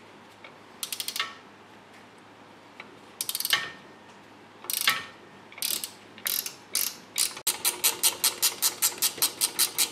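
Ratchet wrench on the 3/4-inch nut of a C3 Corvette rear strut rod bolt, clicking in several short bursts of strokes as the nut is backed off. Near the end it settles into a steady run of about seven or eight clicks a second.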